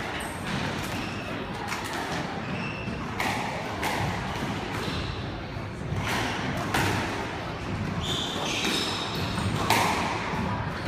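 Squash rally: irregular sharp hits every second or two as the ball is struck by the rackets and smacks off the walls, with a few short squeaks from shoes on the wooden court floor.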